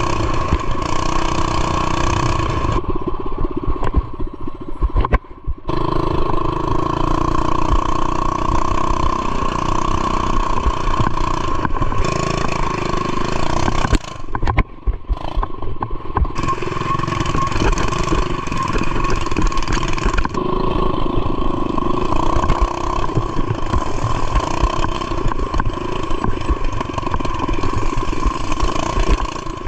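A mini bike's governor-removed single-cylinder four-stroke engine running under way off-road. The sound dips briefly twice, about five seconds in and again about halfway through.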